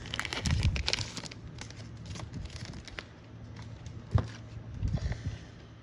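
Trading cards in rigid clear plastic holders being handled and shuffled: light plastic clicks and rustles, busiest in the first second or so, with one sharper click about four seconds in.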